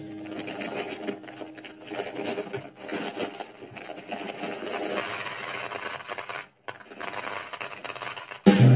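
Small hard gumballs rattling and clattering in a plastic toy bathtub as they are poured from a plastic bag and stirred by hand, in an uneven patter. Music starts up loudly near the end.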